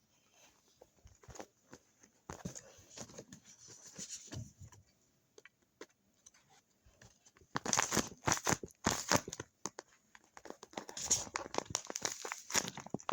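Paper being crinkled and torn open by hand in irregular rustles, growing louder about halfway through.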